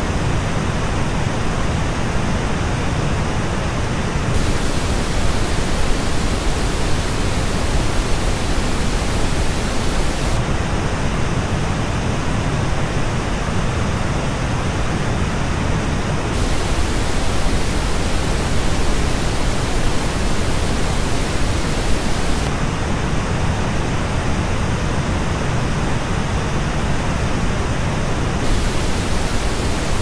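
Pink noise test signal switching about every six seconds between the flat original reference and a version shaped by the Focal Stellia headphones' measured frequency response, which sounds thinner and notched in the upper treble.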